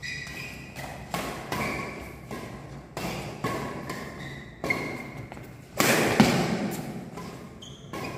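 Badminton rackets striking a shuttlecock in a fast doubles rally drill: a quick run of sharp hits about every half second, with short squeaks in between. The loudest hit comes about six seconds in.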